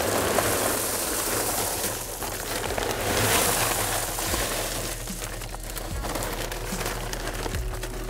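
Fine lava rock pouring out of a plastic bag into a waterfall filter tub, a steady rattling hiss that is loudest about three seconds in. From about five seconds in, the pour gives way to scattered clicks of gravel as the rock is spread by hand.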